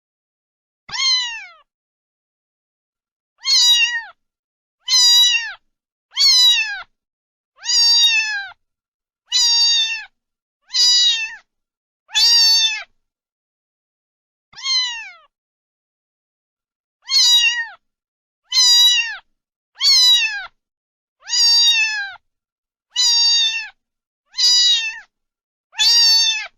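A cat meowing over and over: about sixteen short meows, each falling in pitch, with silence between them and a longer gap in the middle.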